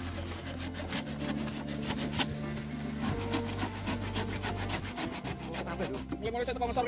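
Hand saw cutting across a wooden plank in repeated back-and-forth strokes, with background music underneath.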